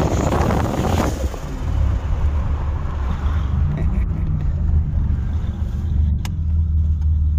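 Buick Grand National's turbocharged V6 heard from inside the cabin while driving: a whoosh of the blow-off valve venting boost for about the first second, then the engine running at a steady low drone.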